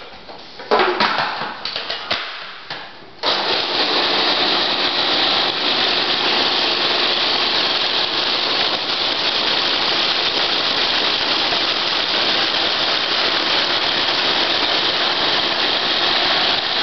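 A few clicks and knocks, then about three seconds in an electric food processor switches on and runs steadily, puréeing chickpeas, tahini, lemon juice and garlic into hummus.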